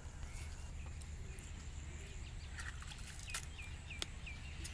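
A bird chirping: a short run of about four quick, falling notes a little past three seconds in. Under it is a steady low rumble, and a few sharp clicks.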